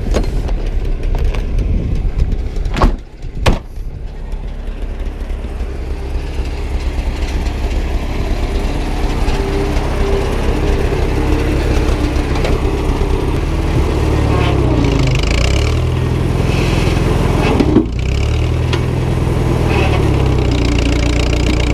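Old front-loader tractor's engine running under load as the loader tries to lift a car chained to it; the engine note dips and shifts in the second half as it works. Two sharp metal clanks about three seconds in.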